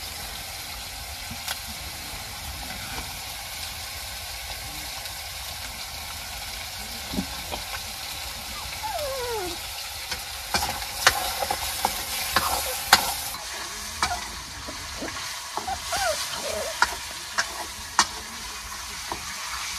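Food sizzling as it fries in a pan, with a steady hiss. Sharp clinks and scrapes of a utensil stirring against the pan come mostly in the second half.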